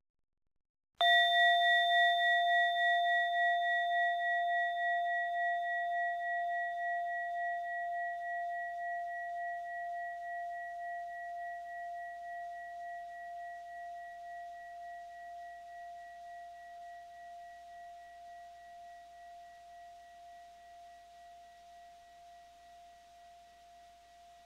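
A bell-like chime struck once about a second in, then ringing out as one clear, mid-high tone that fades very slowly with a slight waver.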